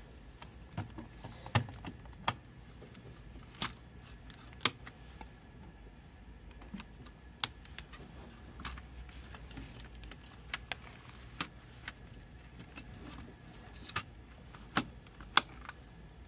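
Plastic CD jewel cases handled and opened: irregular sharp clicks and taps from the hinged lids and disc trays, the loudest about a second and a half in, near five seconds, and near the end.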